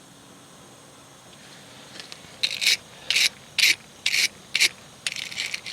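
Rasping scrubbing strokes on a spark plug, about two a second, starting a couple of seconds in: a carbon-fouled plug being scraped clean.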